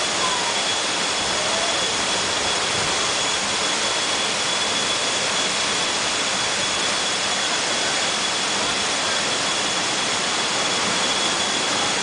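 Steady rushing hiss of a small waterfall pouring into a rock pool, unchanging throughout.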